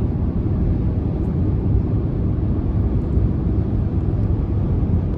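Steady low rumble of road and engine noise heard inside a moving car's cabin at highway speed.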